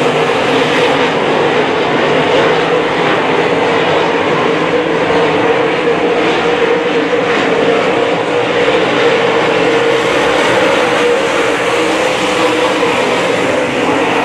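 A pack of dirt-track modified race cars running laps, their engines making a loud, steady drone.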